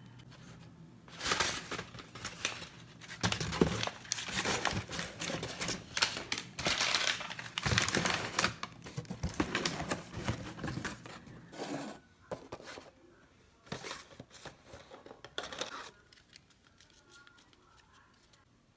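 Packaging being handled and torn open: irregular crinkling, crackling and tearing that starts about a second in, thins out later and stops near the end.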